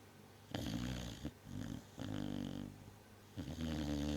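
Vizsla dog snoring in its sleep: three rattling snoring breaths about a second and a half apart.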